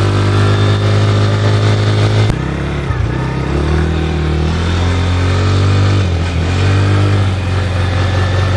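Small quad bike's engine running steadily as the ATV rides off, its pitch shifting a little, with an abrupt change in the sound about two seconds in.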